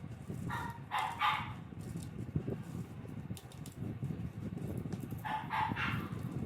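An animal calling in two short groups of two or three calls each, one about a second in and one near the end, over a steady low background noise.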